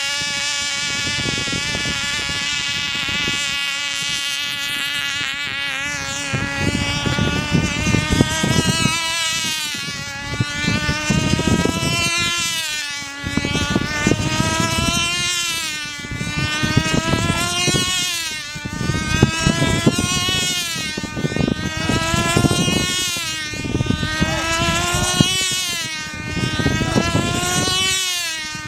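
Small model aircraft engine on a control line speed model, running flat out with a high-pitched whine. Steady for the first few seconds, then its pitch and loudness swell and dip about every two and a half seconds as the model circles the pilot on its lines.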